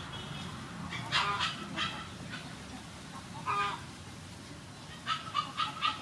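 Chickens clucking: a few short calls about a second in, another midway, and a quick run of four near the end.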